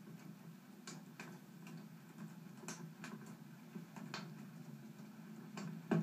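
Wood fire crackling in a fireplace: irregular sharp pops from the burning logs, the loudest one near the end, over a steady low hum.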